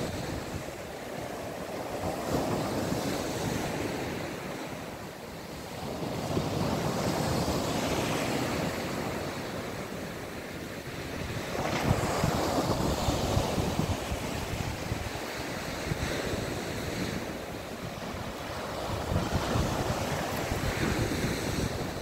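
Small sea waves breaking and washing up a sandy beach, the surf swelling and fading every few seconds, with wind buffeting the microphone.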